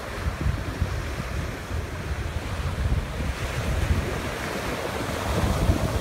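Ocean surf breaking and washing up a pebbly sand beach, a steady rushing wash, with wind buffeting the microphone.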